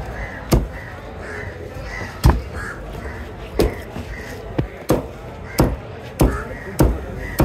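A fish-cutting knife or cleaver chopping through fish on a cutting block: about nine sharp strikes, irregularly spaced and coming faster in the second half.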